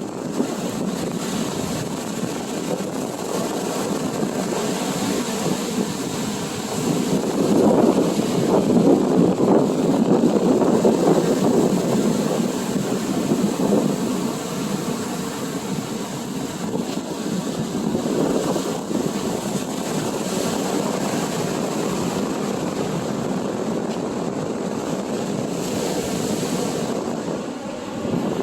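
Ocean surf breaking and washing up the beach, with wind buffeting the microphone; the surf swells louder for several seconds about a quarter of the way in.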